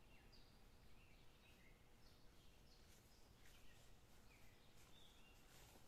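Faint birdsong outdoors: short, high chirps repeating every half second or so. In the second half, soft rustling of footsteps swishing through tall grass comes in.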